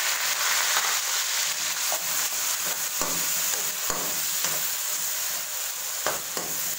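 Chopped onions sizzling as they fry in hot oil in a kadai, stirred with a metal slotted spoon that scrapes and knocks against the pan a few times.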